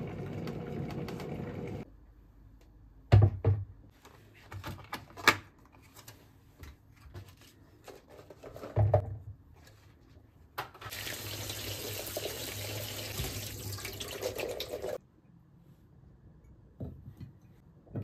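Kitchen tap running water into a stainless steel sink, rinsing blueberries in a plastic colander, for about four seconds before being shut off suddenly. Before it come a few scattered sharp knocks and clatters, the loudest near the start and about halfway through.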